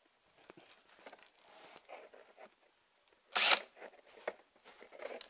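Drill bit biting into carpet-lined panel: a brief, loud ripping burst about three and a half seconds in, like a zipper, after faint clicks and handling noise.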